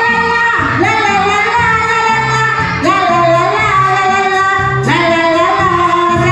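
Music with a high singing voice, sung in phrases of a second or two, over a repeating pattern of low bass notes.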